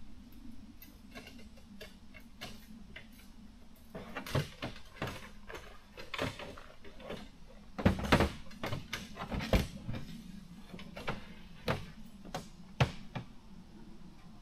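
Irregular clicks, knocks and clatter of camping gear being handled, busiest in the second half, with the loudest knock about eight seconds in.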